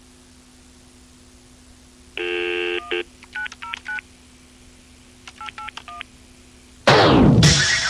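Telephone touch-tone dialing: a short buzzy tone, then two quick runs of keypad beeps. Loud music cuts in near the end, over a low steady hum.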